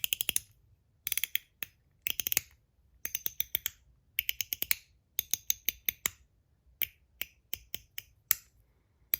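MOT Groove stainless steel mechanical slider fidget being slid back and forth. It gives short runs of crisp clicks about once a second, and many clicks carry a little metallic ding after them.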